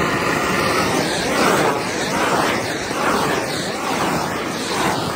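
Fireworks going off close by, giving a loud, continuous rushing hiss.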